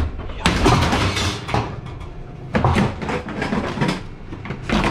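Ceiling boards cracking, crashing and scraping as a person breaks through a ceiling, in several loud, rough bursts.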